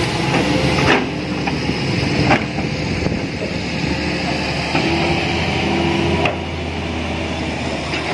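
Hitachi hydraulic excavator running under load as its arm swings and the bucket tips soil, a steady engine hum with a few sharp knocks, the clearest about one and two seconds in.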